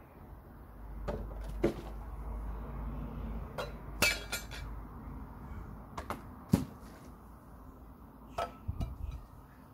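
A series of sharp knocks and clinks as thrown rolled-up socks strike tin cans, a plastic bottle and a drinks carton on a wooden bench and knock them over, with a ringing metallic clink about four seconds in and a heavier thump about six and a half seconds in.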